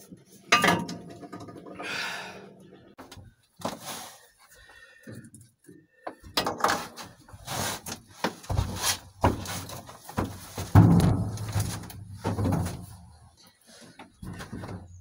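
Knocks, thumps and scuffing of a person moving about in a pickup truck's canopy-covered bed and climbing out over the back, with the heaviest knock about eleven seconds in.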